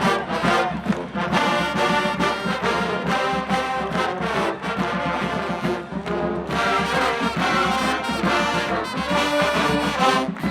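College marching band playing: brass (trumpets and trombones) over a steady drum beat.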